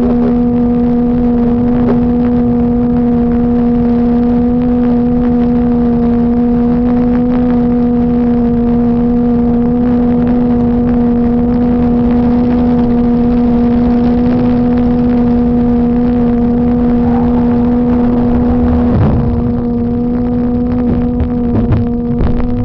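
Steady electrical buzz with overtones on the dash-camera audio, over a continuous low rumble of highway traffic and idling cars. The buzz wavers briefly near the end, when the rumble dips a little.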